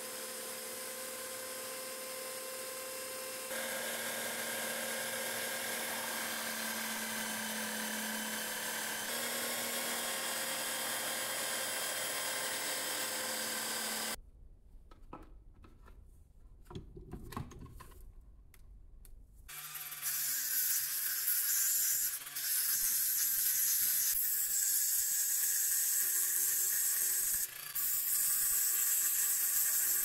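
Power tools working a cast aluminum bar. A steady motor whine runs for about the first half, then a few seconds of quiet clicks and handling, then a rotary tool's buffing wheel hisses steadily against the aluminum through the last third.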